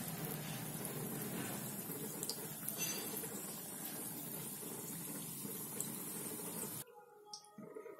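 Aloo samosas deep-frying in hot oil in a kadhai over a low flame: a steady sizzle and bubbling that cuts off suddenly near the end.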